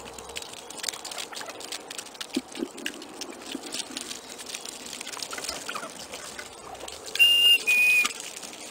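Wild turkeys feeding on scattered seed: a steady patter of small ticks and pecks. About seven seconds in come two short, steady whistle-like tones in quick succession, the second slightly lower, louder than the pecking.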